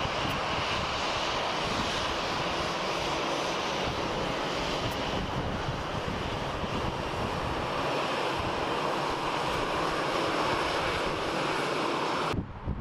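Jet engines of a Delta Airbus A319 at taxi power: a steady rushing jet whine with an uneven low rumble beneath it. The sound cuts off abruptly near the end.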